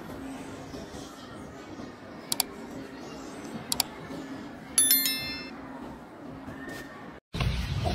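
Subscribe-button sound effect: two quick double mouse clicks, then a bright bell-like notification chime about five seconds in that rings out and fades, over a steady low background hum. Near the end the sound cuts out briefly and returns as louder rushing, wind-like noise.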